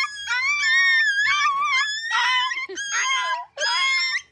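Toy terriers whining and howling in a run of high-pitched, wavering cries, one after another: excited greeting of their owner after a week apart.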